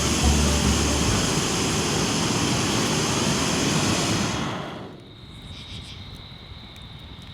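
Rushing river water, a loud steady roar. About five seconds in it gives way to a much quieter background with a thin, steady high-pitched whine.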